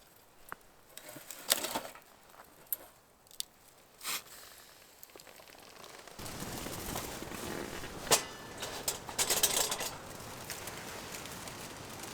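Scattered sharp cracks and crinkling rustles. About six seconds in, a steady rush of wind noise sets in, with more rustling over it.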